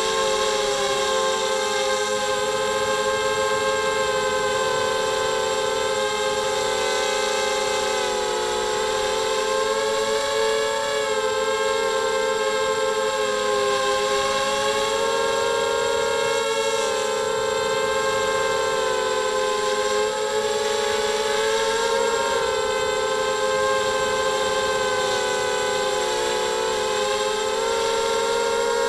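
Brushless motors and propellers of a 250-size FPV mini quadcopter whining steadily, the pitch rising and falling as throttle is added and reduced.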